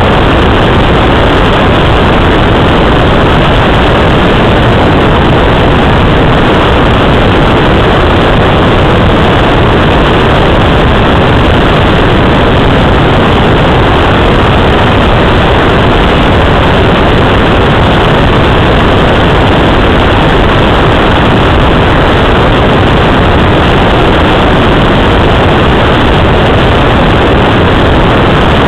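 Steady, loud rush of air around a Let L-33 Solo glider's cockpit while it is on aerotow behind a tow plane.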